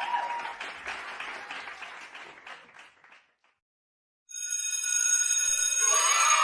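Children cheering and clapping, fading out over about three seconds. After a second of silence a bright, steady ringing tone starts about four seconds in.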